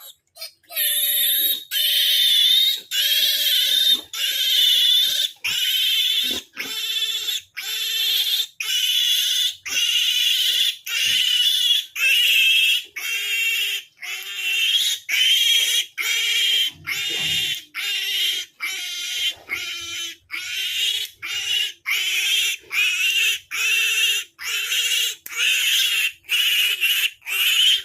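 A three-day-old piglet squealing over and over, loud high-pitched screams about one and a half a second, in distress while being held for processing (teeth clipping, injections, tail docking).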